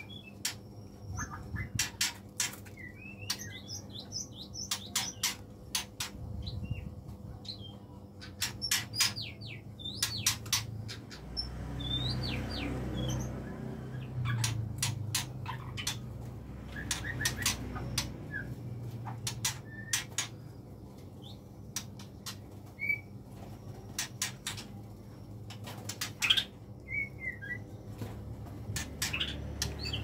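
White-rumped shamas calling: runs of sharp clicking notes mixed with short chirps, with a low rumble underneath for several seconds near the middle.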